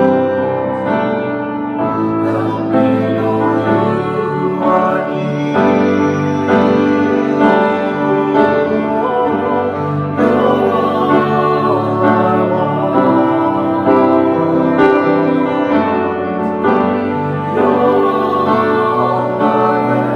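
Grand piano playing a worship song, with a singer's voice over it.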